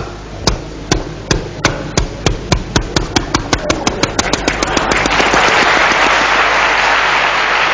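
Engine of a motorised river boat catching on the last starting attempt after misfiring: separate firing knocks begin at about two a second, speed up, and run together into a steady engine noise about five seconds in.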